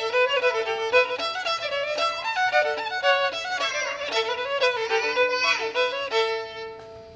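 Solo fiddle playing a quick old-time tune, often sounding two strings at once, then about six seconds in settling on a long held final note that fades away.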